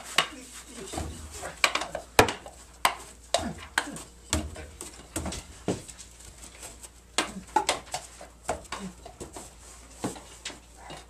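Wooden stick props clacking and knocking together in a mock sword fight, a string of sharp irregular hits about one or two a second.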